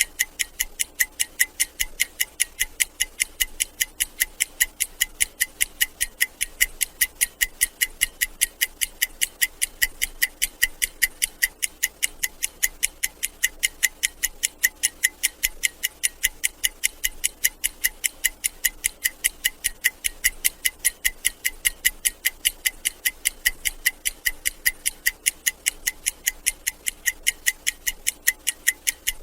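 Analog stopwatch ticking steadily, with even, crisp, high-pitched ticks several times a second.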